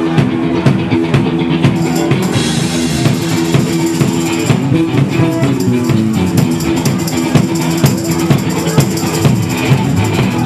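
Live rock band playing: a steady drum-kit beat under electric guitar and keyboard.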